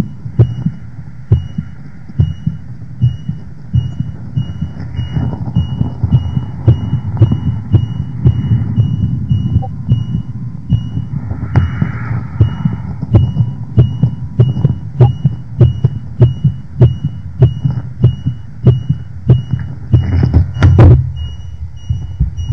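Heartbeat-style sound effect: steady low thumps about twice a second, with a short high electronic beep repeating alongside like a heart monitor. A few sharper, louder hits come near the end.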